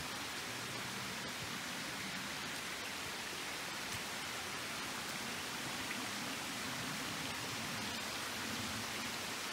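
Steady, even rush of a small forest stream running over stones.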